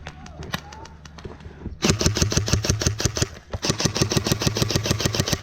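Airsoft guns firing on full auto: after a couple of scattered single shots, a long rapid burst starts about two seconds in, pauses briefly, then runs on until just before the end.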